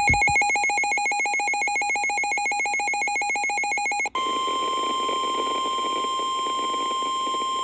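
Emergency alert tones from a weather alert broadcast. First comes a rapidly pulsing, warbling electronic alarm. About four seconds in it switches to a single steady tone just above 1 kHz, the NOAA Weather Radio 1050 Hz warning alarm tone that announces a warning message.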